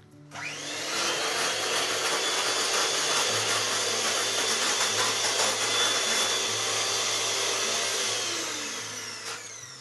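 Electric hand mixer whisking double cream in a glass bowl. The motor spins up just after the start, runs steadily, then winds down near the end as it is switched off.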